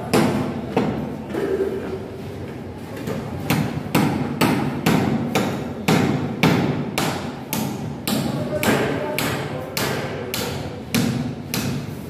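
Repeated hammer blows, sparse at first, then a steady run of about two strikes a second.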